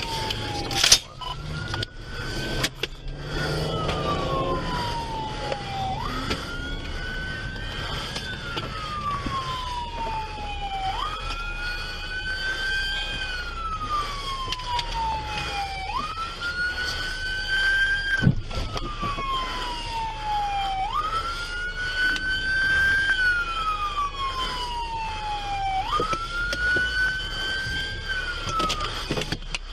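Emergency vehicle siren wailing: each cycle jumps up in pitch, then slides slowly down over about three seconds, repeating about every five seconds. A second, fainter and higher siren sounds behind it. A couple of sharp knocks come in the first few seconds.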